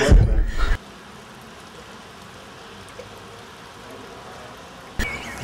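A man's voice cuts off sharply just under a second in, followed by about four seconds of steady, even background hiss with no distinct events. A sudden jump in level near the end starts new sound.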